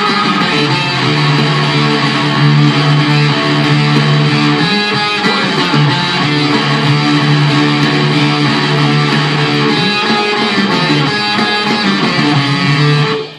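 Electric guitar playing sustained, strummed rock chords. The music stops abruptly near the end.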